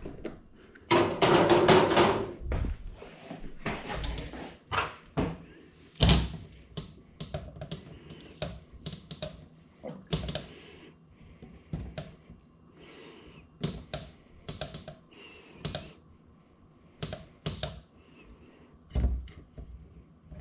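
Irregular knocks, taps and thuds of hands-on kitchen prep while handling and cutting beef, with a louder burst of clattering about a second in.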